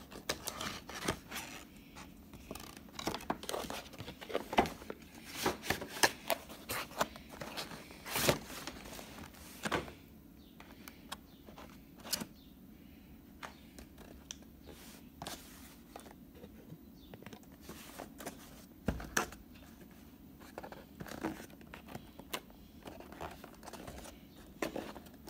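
Cardboard product boxes being opened and handled by hand: irregular scrapes, taps and rustling, busiest in the first ten seconds and sparser after.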